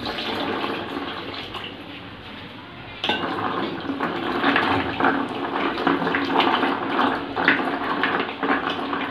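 Water poured from a steel vessel into a plastic basin of jackfruit seeds for about three seconds, then a hand swishing and rubbing the seeds around in the water, splashing as they are washed.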